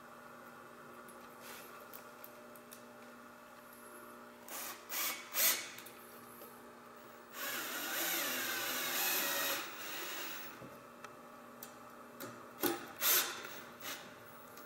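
Bosch compact cordless drill/driver driving a screw through a MiniLock steel plate into a wooden newel post, running for about three seconds in the middle with a shifting whine, with a few short bursts before and after.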